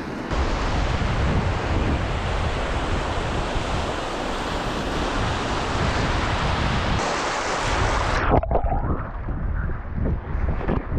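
Small sea waves breaking and washing around a wader in rocky shallows, with heavy wind buffeting the microphone. About eight seconds in the sound turns abruptly muffled, the surf's hiss dropping away to a low, uneven rumble with a few knocks.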